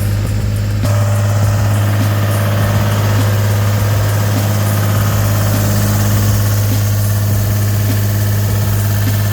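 Deutz diesel engine of a Gehl 4640 skid steer idling steadily, a little louder from about a second in.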